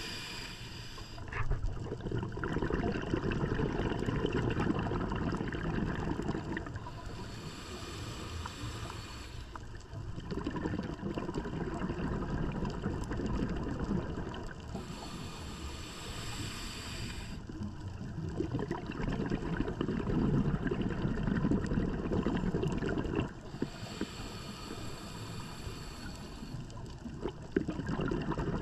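Scuba diver breathing through a regulator underwater. Three slow inhalations, each a high hiss of two or three seconds, alternate with longer spells of low bubbling rumble as the exhaled air bubbles out.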